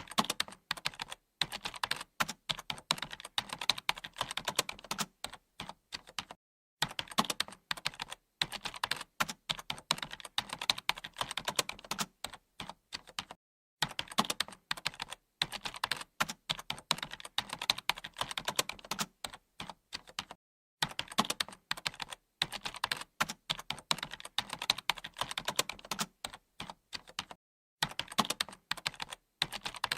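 Fast, continuous typing on a computer keyboard, a dense patter of key clicks in runs of several seconds broken by brief pauses.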